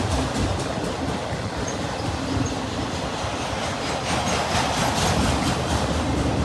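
Railroad cars rolling past steadily, their wheels clattering over the rails.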